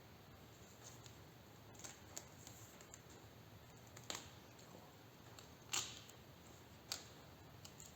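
A few faint, sharp clicks and taps from hands handling small objects over a low steady hum, the loudest a little before six seconds in.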